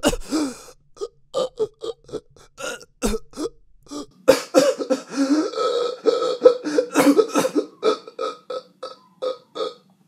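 A man's voice making wordless struggle noises close to a studio microphone: a quick run of short, throaty grunts and gasps, several a second, with a longer strained stretch in the middle. They are a voice actor's sound effects for a character fighting for his life.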